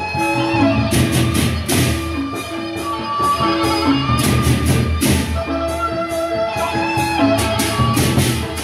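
Sasak gendang beleq ensemble playing: large double-headed barrel drums beaten over repeated clashes of hand cymbals, with a melodic line of held pitched notes running through.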